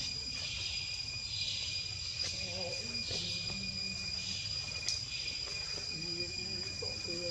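Insects chirring steadily in a high, unbroken chorus, with a second layer that swells and fades about once a second.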